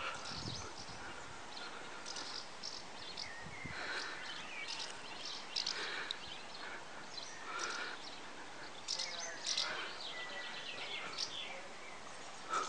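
Swallows twittering at their nests: many short, high chirps and a few quick trills throughout, over a steady background hiss.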